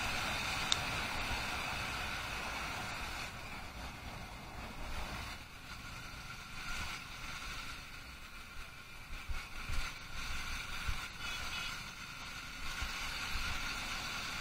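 Yamaha R15 V3 motorcycle on the move: steady wind rush over the microphone mixed with engine and road noise. It eases off about three or four seconds in as the bike slows from around 50 to 35 km/h.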